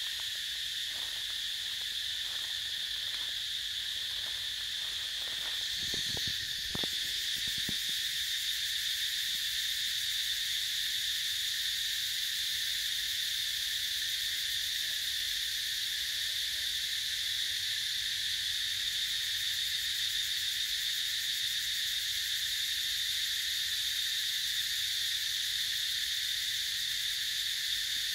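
A steady, high-pitched chorus of forest insects drones without a break. A few faint knocks come in the first several seconds, the clearest about six to seven seconds in.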